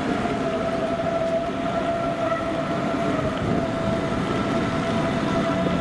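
Electric train at a station platform, a steady whine over a low rumble.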